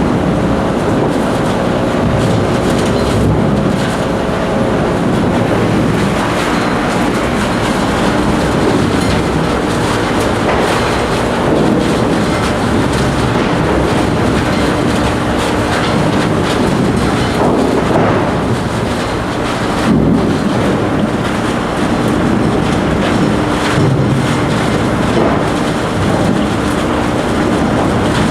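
Large wood chipper running: a loud, steady machine drone with a dense rough noise over it and small irregular swells.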